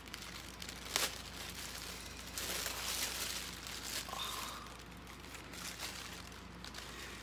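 Thin clear plastic bag crinkling and rustling as it is handled and pulled open, louder for a moment about two and a half seconds in, with a sharp click about a second in.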